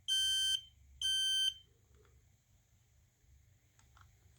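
Firex R4618A smoke alarm sounding on test: the last two of a group of three high-pitched beeps, each about half a second long with half-second gaps, the standard temporal-three alarm pattern. It stops about a second and a half in.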